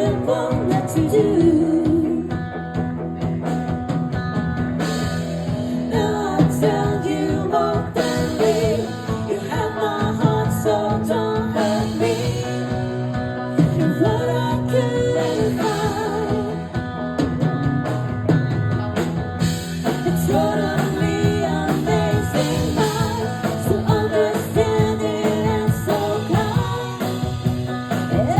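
A band playing a rock song with a singer, over a steady beat.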